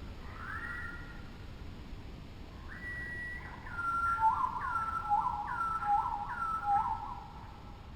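Birds whistling: a short rising call about half a second in, then a run of clear whistled notes with four repeated falling slurs between about four and seven seconds, over a faint steady background hiss.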